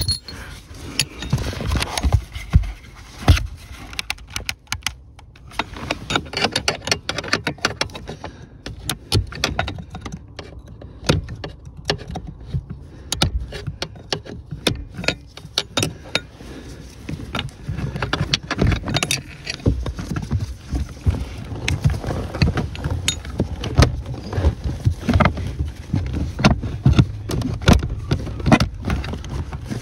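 Irregular clicks, taps and light rattles of a hand and tools working at the clutch pedal pin and bushes in a BMW E60/E61 pedal box, plastic and metal parts knocking together.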